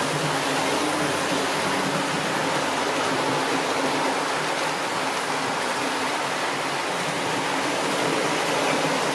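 00 gauge model trains running on the layout: a steady rushing whirr of their motors and wheels on the track, unchanging throughout.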